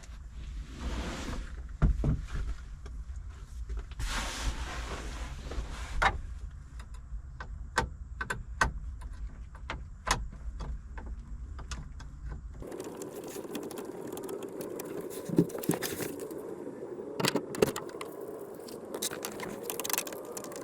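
Hand work on plastic dash trim and its screws: scattered sharp clicks and knocks, with a couple of longer scrapes in the first few seconds. Partway through, the background changes abruptly to a steady low hum, with more clicks after it.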